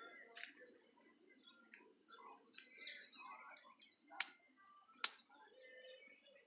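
Outdoor garden ambience: scattered bird chirps over a steady high-pitched insect trill. Two sharp ticks stand out, about four and five seconds in.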